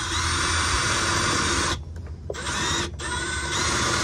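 Cordless drill with a quarter-inch bit boring a pilot hole up into a van's bare metal underbody. It runs steadily, stops just before the halfway point, then starts again with a brief pause soon after.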